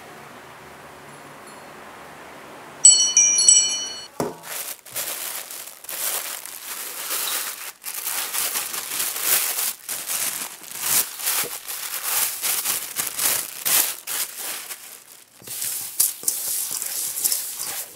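A bright chime of several high tones rings about three seconds in for about a second. Then come irregular crinkling of a plastic bag and the rustle and scrape of fried shallots and chopped scallions being tossed by a gloved hand in a stainless steel bowl, as seasoning for pork meatballs is mixed.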